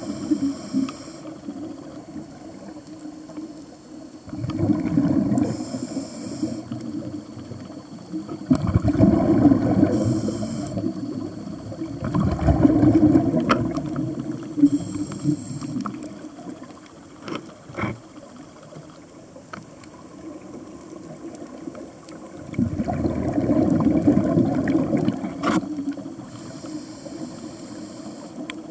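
Scuba regulator breathing heard underwater: a short high hiss on each inhale, then a rumbling gurgle of exhaust bubbles on each exhale, four breaths in all, each a few seconds apart. A few sharp clicks come in between.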